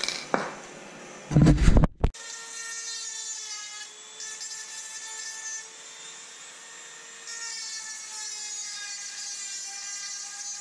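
A few knocks and a loud thump, then a small corded rotary grinding tool running against a steel ATV lower A-arm, deburring it: a steady high whine that wavers a little in pitch.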